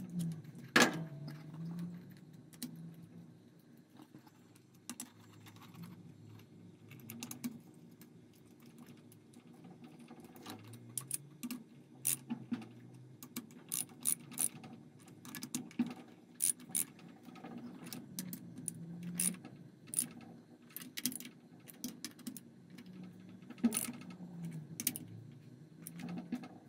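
Ratchet wrench with a 12 mm socket clicking in short irregular runs as the cylinder head nuts are snugged down, with a sharp metal clack about a second in.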